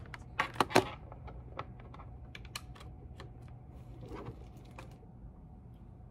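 Typing on a laptop keyboard: a few louder knocks in the first second, then scattered lighter key clicks that stop about a second before the end, over a low steady hum.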